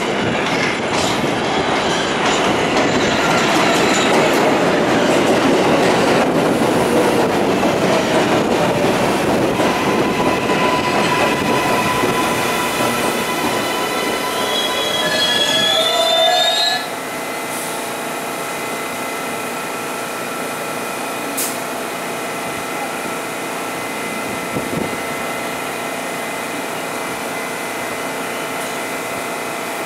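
New York subway 7 express train of R142A/R188 cars pulling into the station: wheels rumbling and squealing, with a whine that rises as it brakes, then it stops abruptly about seventeen seconds in. After that the standing train gives a steady hum.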